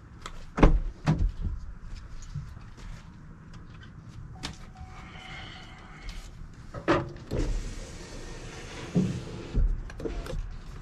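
Newly replaced power window regulator and motor in a 2019 Chevy Impala's rear door running the glass down and back up on a function test, with several knocks, the loudest about half a second in.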